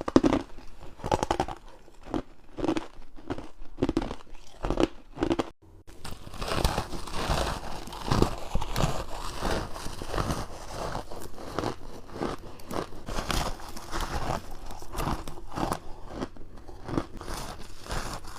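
Close-miked bites crunching through frozen ice and frost chunks in a rapid string of crunches. After a brief break about five and a half seconds in, the crunching turns denser and crackly, typical of powdery frost.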